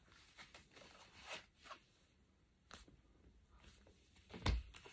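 Faint rustling and handling noises of paper art prints being picked up and moved, with a soft thump about four and a half seconds in.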